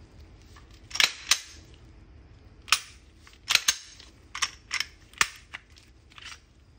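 Glock 17 pistol's slide and frame clicking and clacking as the slide is fitted back onto the frame by hand: a series of about nine sharp clicks, some in quick pairs.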